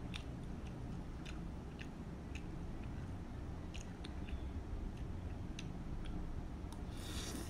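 Close-miked eating of instant curry noodles: wet chewing with scattered small mouth and utensil clicks, then a brief hissing slurp as noodles are drawn in near the end.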